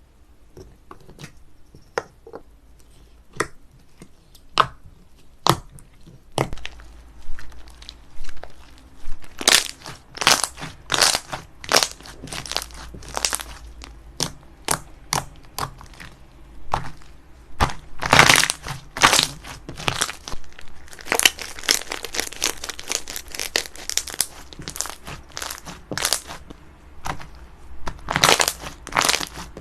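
Slime being pressed and squeezed by hand, making crisp crackling, crunchy pops. The pops are sparse and single at first, then come in dense crackling runs from about a third of the way in.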